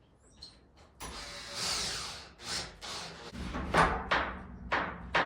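Door latch and deadbolt hardware being worked: a short rattling noise starting about a second in, then several sharp metallic clicks and knocks as the bolt and latch are tried against the strike plates.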